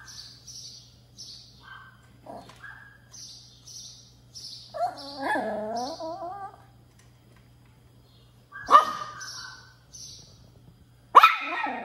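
Pomeranian puppy begging for food: one long wavering whine in the middle, then two sharp yelping barks near the end, the last the loudest. Under it, kittens crunch dry food from their bowls in quick regular bites.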